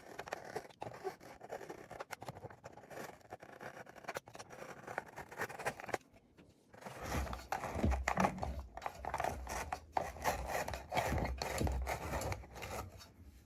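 A knife scraping and cutting around a loudspeaker's dust cap to loosen its petrol-softened glue, in many small irregular scrapes and clicks. It stops briefly about halfway, then goes on louder with dull handling knocks.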